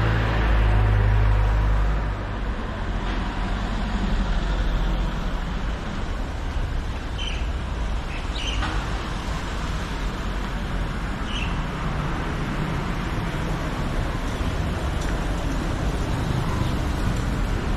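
Steady engine and road noise from a vehicle driving along a city street. A heavier, louder low rumble fills the first two seconds as a jeepney passes close by. A few short, high chirps sound now and then.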